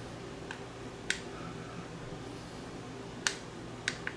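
Clicks of a digital alarm clock's top time-setting buttons being pressed: five short, separate clicks, the loudest a little past the middle and the last two close together near the end, over a low steady room hum.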